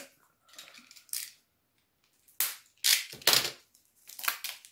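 Plastic candy packaging crinkling and clicking as it is worked open by hand, in a handful of short sharp crackles.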